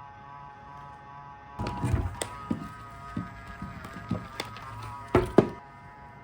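A string of irregular knocks and thumps, the loudest two close together near the end, over a steady hum.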